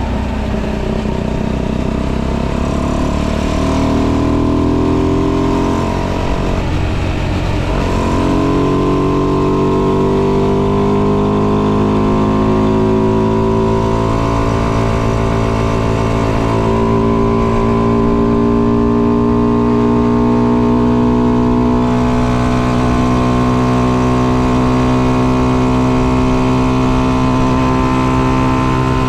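Tuned 125cc motorcycle engine with a modified intake and exhaust, ridden under way. The revs climb, dip sharply about six seconds in, then climb slowly and level off to a steady run.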